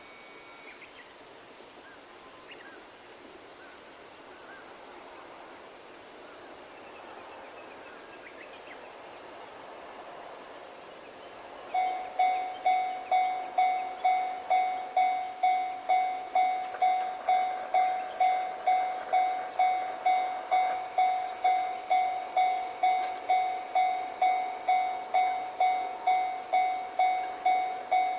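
Japanese level-crossing warning bell starting up about twelve seconds in and ringing steadily at about two strikes a second, each strike a clanging tone that dies away before the next, warning of an approaching train. Before it starts there is only a steady faint hiss.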